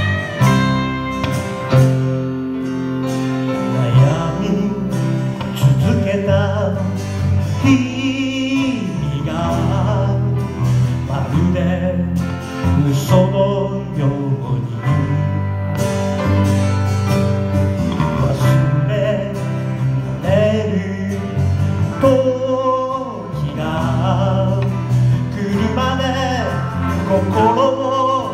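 A live band playing a song: acoustic guitar, electric bass, electric guitar and grand piano, with a man singing lead.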